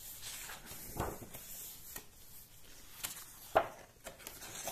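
Pages of a book being turned and handled: a few soft rustles and short knocks, the sharpest about three and a half seconds in.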